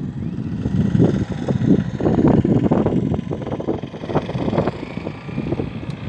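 Wind blowing across the phone's microphone, buffeting in uneven gusts with a deep, rough rumble.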